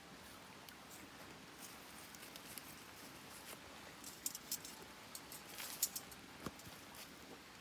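Wood campfire crackling: scattered small pops and snaps over a faint steady hiss, thickest a little past the middle.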